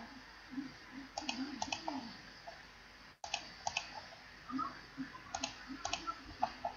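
Computer mouse clicking repeatedly, in quick runs of two or three clicks.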